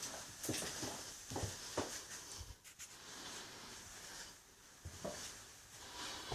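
Rustling with a few light knocks and clicks that fade off near the end.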